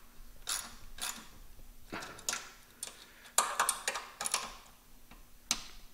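Ratchet wrench clicking in short, irregular strokes, a few clicks at a time, while tightening the bolts of a caster camber plate to lock in the newly set caster.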